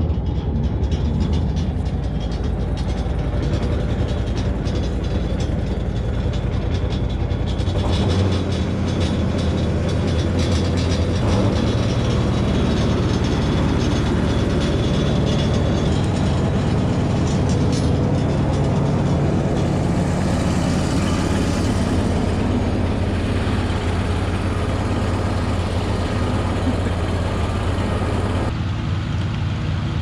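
Wood chipper's engine running steadily at a constant speed while it warms up.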